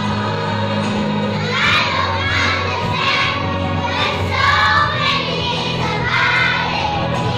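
A group of young children singing loudly together in unison, over a steady musical accompaniment.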